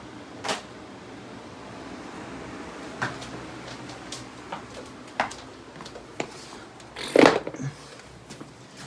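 Scattered knocks and clicks of things being handled indoors, with a louder thump about seven seconds in, over a steady hiss.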